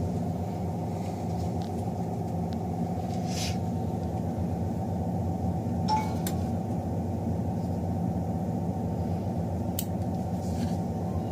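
Steady low mechanical hum, like a fan or motor, with a few faint clicks about three, six and ten seconds in.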